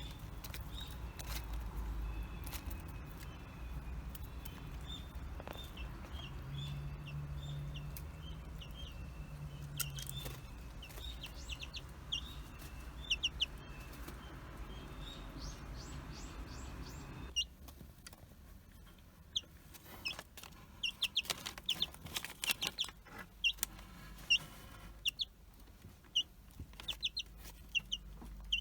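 Nagoya Cochin chicks peeping, many short high peeps again and again, with scattered light clicks and taps among them. A low hum lies under the first part and drops away a little past halfway.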